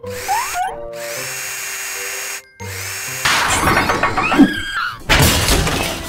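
Cartoon sound effect of a cordless power drill whirring, stopping briefly about two and a half seconds in and then starting again, with children's background music. The drill gets busier and louder, and near the end there is a loud crashing clatter.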